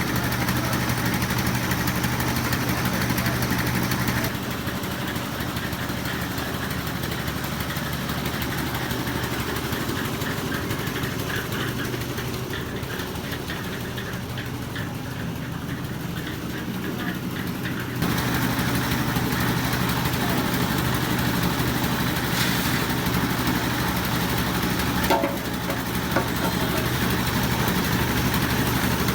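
An engine running steadily at an even speed. Its level drops abruptly about four seconds in and comes back up around eighteen seconds, with a couple of short knocks near the end.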